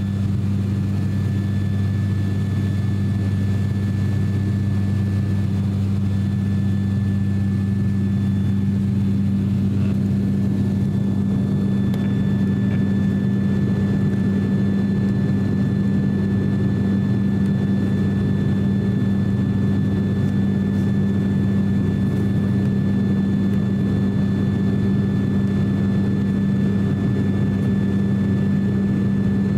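Cabin drone of an ATR 42-600's turboprop engines and propellers in flight, heard from a window seat: a steady deep hum with a thin, fainter high whine on top.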